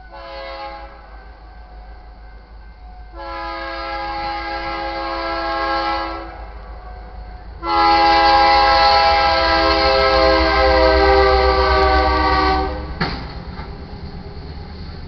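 Multi-note air horn of a BNSF GE Dash 9-44CW locomotive sounding for a grade crossing: a short blast, then two long blasts, the last the loudest as the engine reaches the crossing. The horn cuts off and the low rumble of the passing train follows.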